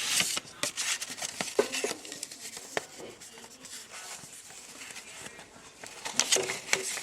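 Paper rustling with small clicks and taps as an envelope is handled and opened and a folded sheet is pulled out, busiest near the end.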